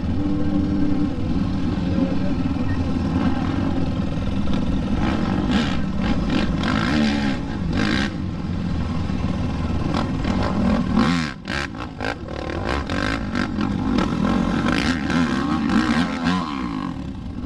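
Racing quad (ATV) engines revving hard and easing off over and over, the pitch rising and falling with each burst of throttle.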